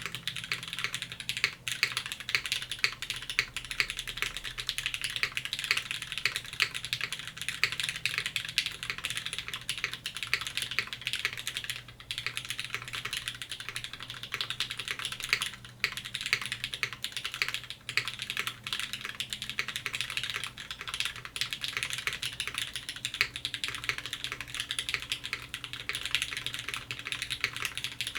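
Continuous fast typing on a Velvet Pro mechanical keyboard with lubed, broken-in Cherry MX Black linear switches in an aluminum plate, a dense run of key strokes with brief pauses about twelve and fifteen seconds in.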